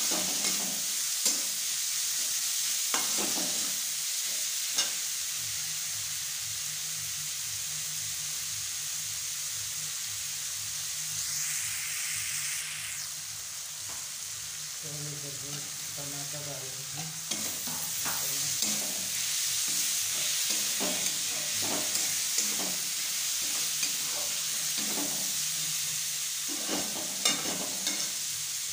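Onions and spices frying in hot oil in a kadhai, sizzling steadily, while a spatula stirs them, scraping and knocking against the pan every second or two.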